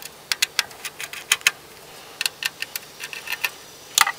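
Small, irregular clicks and ticks of a screwdriver and small screws as screws are unscrewed from a router's motherboard, with one louder click near the end.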